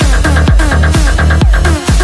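Electronic dance music with a steady, evenly repeating kick drum beat and synthesizer lines.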